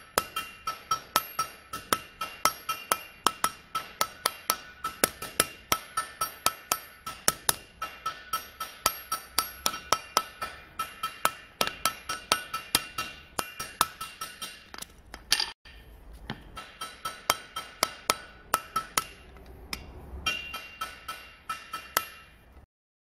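Hand hammer forging a red-hot Damascus steel knife blank on an anvil: steady blows, about three a second, each with a bright metallic ring. The hammering breaks off briefly about fifteen seconds in and stops shortly before the end.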